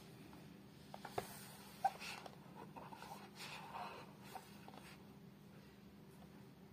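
Faint handling sounds of a cardboard toy box and a plastic blister-card package in gloved hands: soft rustling and light taps, with a sharper click just under two seconds in.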